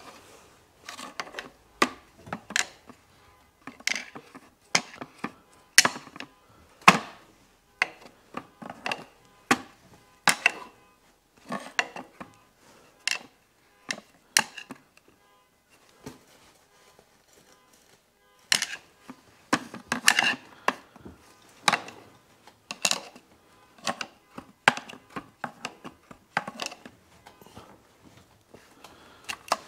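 Hand tools and metal engine parts clinking and knocking irregularly, one or two sharp knocks a second, while the timing-belt drive of a Subaru boxer engine is taken apart. The knocking pauses for about two seconds midway.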